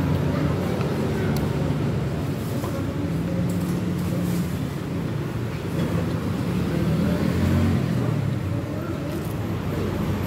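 Steady low rumble of road traffic, with motor vehicle engines swelling and easing as they pass.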